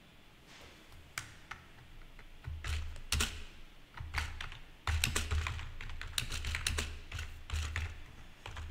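Typing on a computer keyboard: irregular keystrokes, a few spaced ones at first, then quicker runs from about two and a half seconds in.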